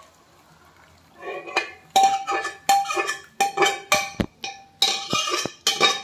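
A steel ladle scrapes and knocks against an aluminium pot and kadai while boiled black gram is scooped and poured out. The metallic scrapes and clinks ring, come in quick succession and start about a second in.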